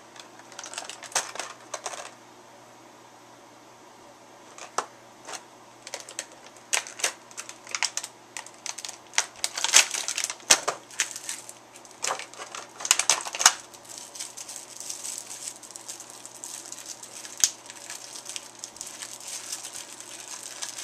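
Clear plastic packaging crackling and clicking in irregular bursts as a model starship is pried out of it. Near-silent for a couple of seconds at first, then the clicks and crinkles come thickest and loudest in the middle, thinning to lighter crackling near the end.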